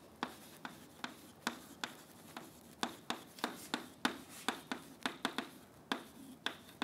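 Chalk writing on a blackboard: a run of short, sharp taps and light scrapes as the letters are formed, about three a second and unevenly spaced.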